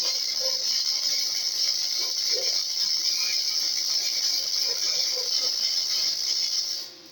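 Electric arc welding a bead on steel angle iron: the arc gives a steady, even crackling hiss that cuts off suddenly near the end as the weld stops.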